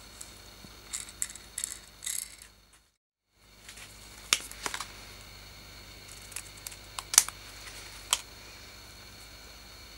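Small sharp clicks and taps of a petrol lighter's metal insert and small tools being handled, a few at a time, over a faint steady background hum. The sound drops out completely for a moment about three seconds in.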